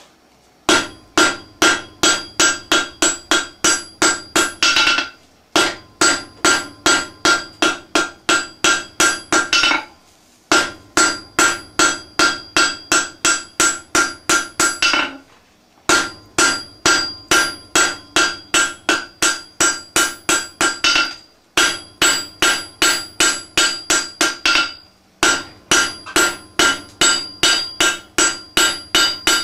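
Hammer blows ringing on an anvil while forging steel, about three strikes a second in runs of four to five seconds with brief pauses between them.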